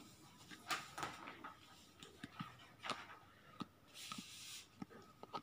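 Faint marker pen on paper: scattered light taps and clicks, and a short scratchy hiss about four seconds in.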